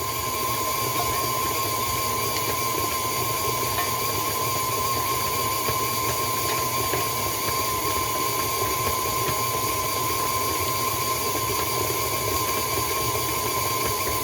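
Electric mixer motor running steadily while mixing pizza dough, with a constant whine over the motor noise.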